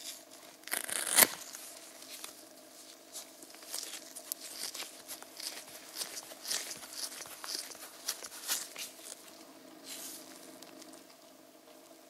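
Crinkling, rustling handling noises in irregular crackles, the loudest about a second in, over a faint steady hum.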